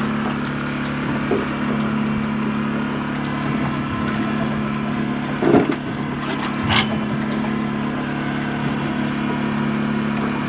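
A motor running steadily with a constant low hum, with a couple of short rustles or scrapes about halfway through.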